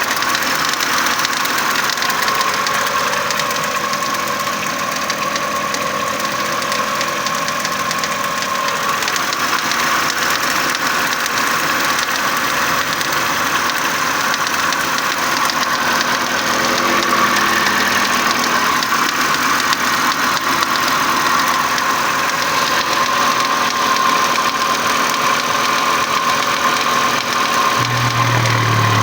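Nissan Qashqai J10 1.6-litre petrol engine idling from a cold start. Over the steady running there is a rattle from under the bonnet, like metal balls, and a steady whine. The owner does not know the cause of the noise.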